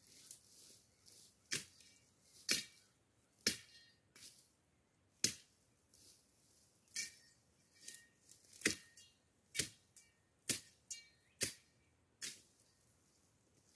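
Machete chopping through dry brush and branches: about a dozen sharp strikes at irregular intervals, roughly one a second, some with a faint metallic ring.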